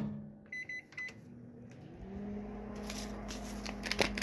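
Microwave oven keypad giving a few short beeps as buttons are pressed, then, about two seconds in, the oven starts and runs with a steady low hum. A few handling clicks come near the end.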